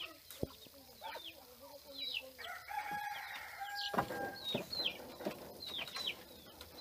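A rooster crows once, about two and a half seconds in, over repeated short, high, downward chirps of birds.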